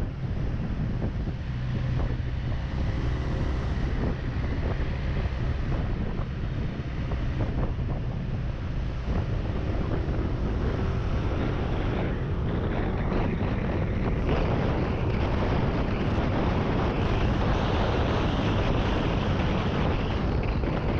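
Wind buffeting the microphone while riding a Yamaha NMAX 155 scooter, its single-cylinder engine droning steadily underneath. The wind noise grows louder about halfway through.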